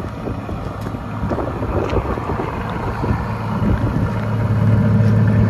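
Aston Martin V12 engine idling with a low gurgling burble, a steady tone that grows steadily louder.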